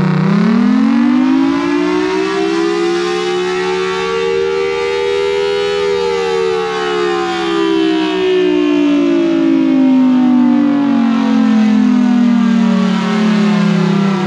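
Federal Signal Thunderbolt 1003 tornado siren sounding, its pitch climbing over about five seconds, holding briefly, then sliding slowly back down, with a steady lower tone underneath.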